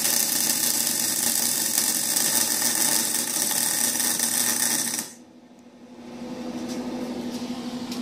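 Lincoln Handy MIG wire-feed welder arc crackling steadily as a bead is run around a butt joint in scrap exhaust pipe. The arc stops abruptly about five seconds in, leaving a low steady hum.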